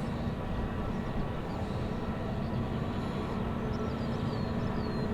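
Airbus A380's four jet engines rumbling steadily as the airliner climbs out after takeoff.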